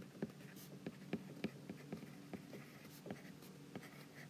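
A stylus writing on a tablet screen: faint, irregular light taps and scratches as a short line of handwriting is written.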